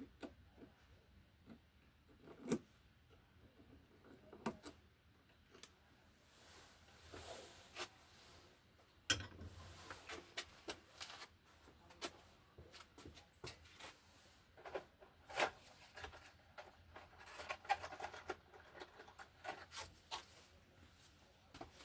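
Faint, scattered clicks and rubbing of electrical wires being handled and straightened by hand, with a few sharper ticks.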